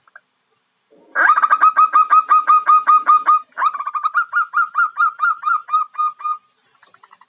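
Female zebra dove (perkutut) calling: two rapid runs of short, clipped notes, about seven a second, starting about a second in, the second run following straight after the first and slowly fading. A call of this kind is used to lure male zebra doves.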